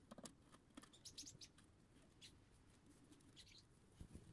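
Near silence, with a few faint, short, high-pitched sounds scattered through it.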